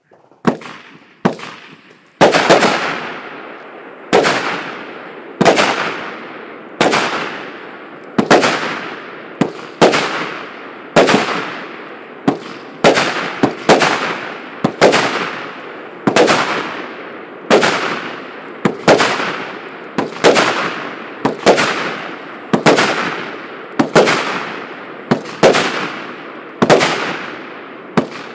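A 148-shot consumer firework battery (cake) firing shot after shot: a sharp bang about every one and a half seconds, sometimes two in quick succession, each trailing off in a fading hiss.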